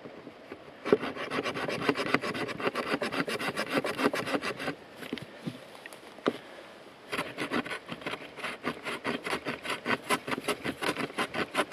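The saw teeth on the spine of an Aitor Oso Blanco knife sawing back and forth through a branch, a rapid rasping. It stops for about two seconds near the middle, then starts again.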